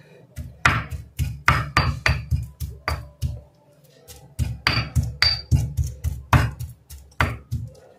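A pestle pounding soft candied carrot (carrot murabba) in a stone mortar: repeated knocks at about three strokes a second, pausing for about a second midway before starting again.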